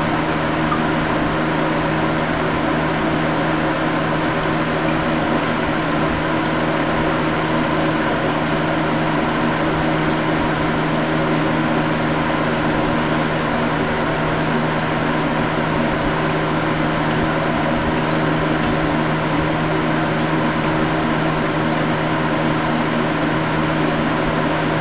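Aquarium pump running with a steady, unbroken mechanical hum and a constant hiss.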